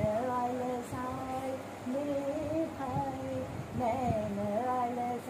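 A woman singing a Hindustani classical bandish in Raag Gujari Todi, holding long notes and sliding between them with ornamented glides.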